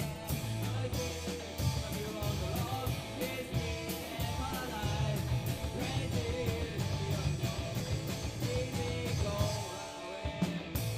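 A rock band playing live: guitar and a drum kit keeping a steady beat, with a singer's voice over them.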